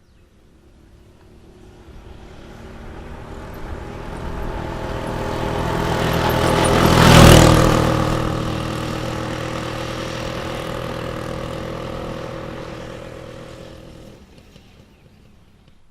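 A motorbike passing by with a steady engine note. The sound swells from silence over about seven seconds, is loudest for a moment as the bike goes past, then fades away over the next eight seconds.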